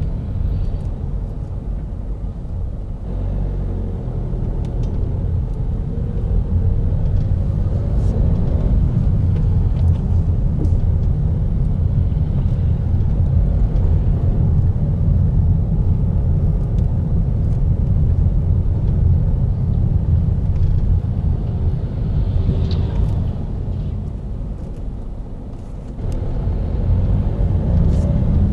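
Car driving at town speed, heard from inside the cabin: a steady low rumble of engine and tyre noise, with the engine note wavering as the car slows and speeds up. It dips softer for a few seconds near the end, then picks up again.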